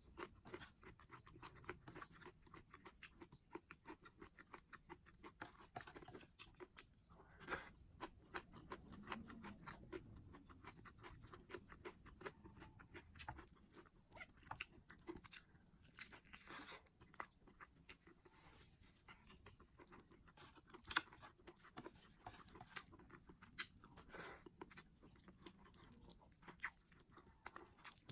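Close-miked chewing and wet mouth clicks of someone eating, with a few louder crunchy bites.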